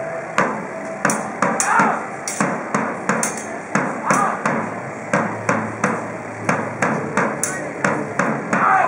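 Swords clashing in a historical fencing bout: a quick, fairly even run of sharp metallic clangs, about two to three a second.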